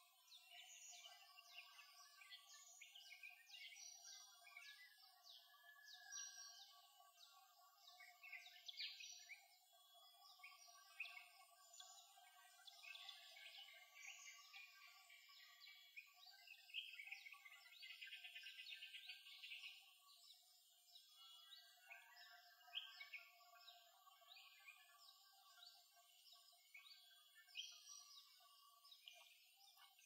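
Faint tropical forest ambience: many birds chirping and calling over one another in dense, overlapping notes above a steady drone.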